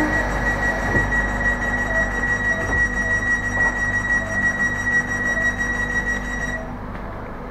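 Train door-closing warning alarm: a steady high-pitched tone with a softer beep repeating about twice a second under it, over a low rumble, both stopping about six and a half seconds in as the sliding door shuts. A knock sounds about a second in.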